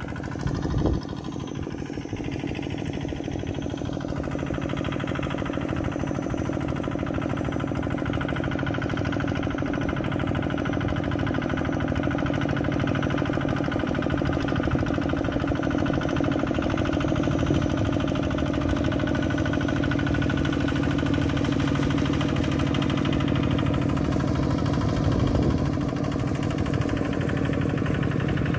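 Two-wheel walking tractor fitted with paddle wheels, its engine running steadily under load as it puddles mud in a flooded rice field. The engine grows gradually louder as the machine approaches.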